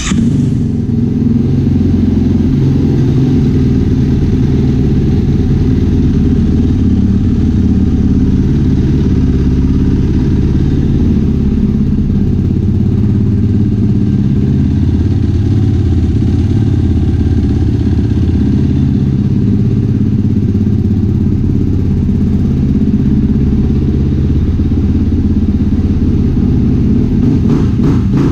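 Yamaha YFZ450R quad's single-cylinder four-stroke engine running at a steady idle, having just fired up after an oil change.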